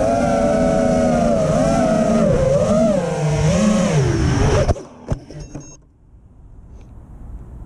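FPV quadcopter's electric motors whining, the pitch rising and falling with the throttle. The whine cuts off suddenly nearly five seconds in as the quad comes down in the grass, followed by a few light knocks and a faint hiss.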